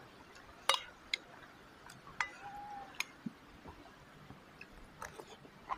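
Quiet eating sounds: a scattering of short, sharp clicks and smacks from chewing, a few per second at most, over a faint background hiss.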